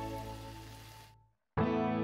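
Background music fades out about a second in, followed by a moment of dead silence, and a new piece of music starts abruptly just after halfway.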